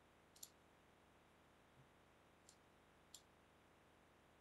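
Near silence with a few faint, sharp clicks: a quick double click about half a second in, then single clicks at about two and a half and three seconds.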